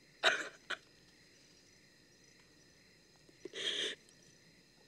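A boy crying quietly: a short sob just after the start and a breathy, sobbing intake of breath about three and a half seconds in, with crickets chirping steadily in the background.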